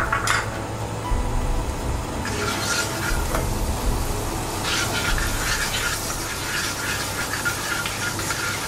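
Butter melting and sizzling in a hot non-stick kadai, pushed and scraped around the pan with a spatula from about two seconds in, with a brief lull just before the middle. A low steady hum runs underneath.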